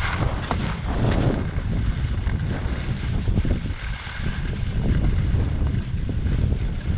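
Wind rushing over the microphone of a skier's camera during a downhill run, with the hiss and scrape of skis on groomed snow. A couple of sharp knocks come in the first second and a half.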